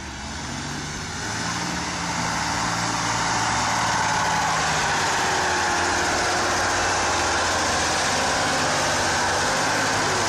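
Heavy truck or machine engine running, growing louder over the first few seconds and then holding steady.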